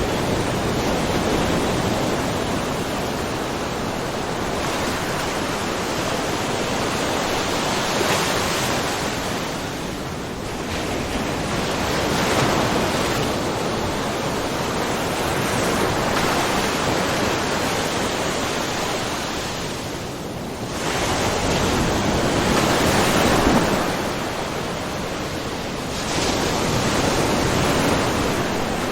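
Small ocean waves splashing and washing over a rocky, mussel-covered shore, a continuous wash that swells and eases every few seconds.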